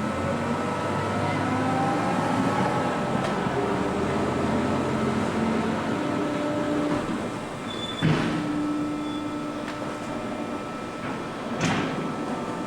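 Cram-A-Lot HX-72-W baler with its conveyor running: a steady mechanical drone with shifting hums, broken by two sharp clanks, one about eight seconds in and one near the end.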